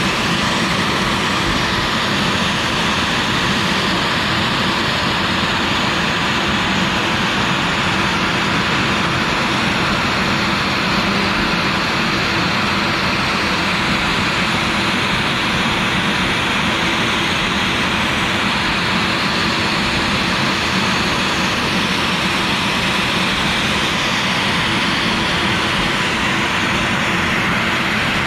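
CNC router spindle running steadily with a 45° V-bit cutting PVC: an even, loud whir with a constant hum underneath.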